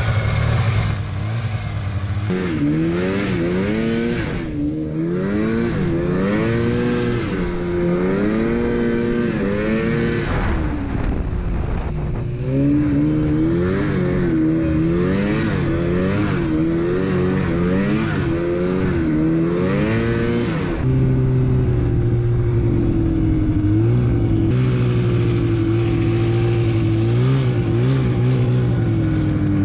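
Snowmobile engine being ridden, revving up and easing off over and over as the throttle is worked. Later it runs at a steadier pitch, then winds down near the end.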